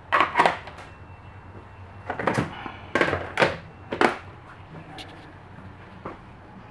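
A handful of loud knocks and bumps in four quick clusters over the first four seconds, with a weaker one about six seconds in, over a faint steady low hum.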